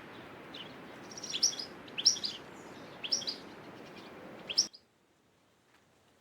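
Small songbird chirping in short high phrases, about one a second, four times over a faint steady hiss; the sound cuts off suddenly near the end.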